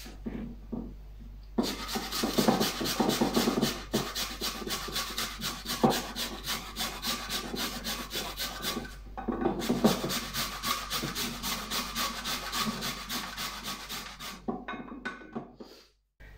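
Raw peeled potatoes grated on the finest holes of a flat metal hand grater: a fast, even rasping stroke about four times a second, with a short break about nine seconds in.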